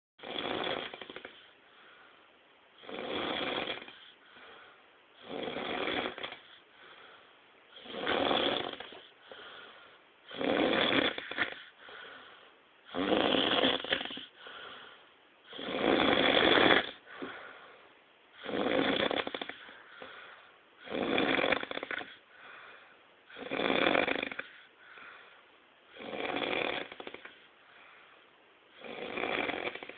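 A person snoring heavily and steadily: a loud rasping snore about every two and a half seconds, around twelve in all, with a much fainter breath between each.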